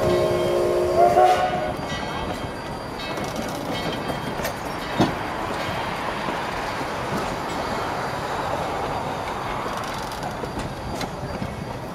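A steam locomotive's whistle sounds a chord of several notes, rising slightly in pitch before cutting off about a second and a half in. After that, the train's passenger coaches roll slowly past on the rails with a steady rumble and scattered clicks from the wheels.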